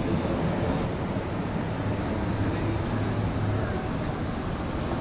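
A passing vehicle's steady low rumble with thin, high-pitched squealing tones over it that come and go for about four seconds.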